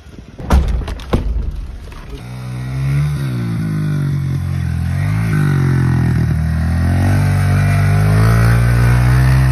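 A few sharp knocks in the first second, then a dirt bike's engine running from about two seconds in, its pitch rising and falling as it is revved.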